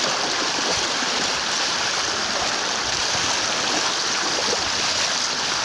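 Steady rush of floodwater flowing across a road from an overflowing lagoon.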